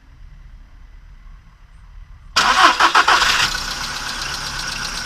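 VW Polo Sedan petrol engine starting about two seconds in: a second of loud uneven cranking and catching, then it settles into a steady idle with a fast ticking, the hydraulic lifter knock of the first seconds after start.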